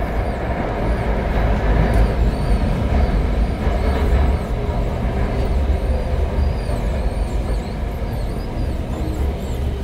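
Interior running noise of a Bombardier MOV1A metro train under way: a steady low rumble of wheels on rail and traction equipment heard inside the passenger car.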